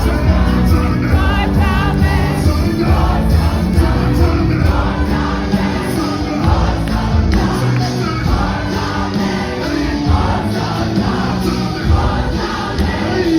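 Music with a group of voices singing together, choir-like.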